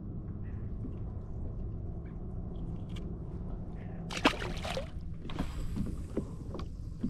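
Steady low wind and water noise around a kayak, with a sharp clatter about four seconds in, then a rustling hiss and a few knocks.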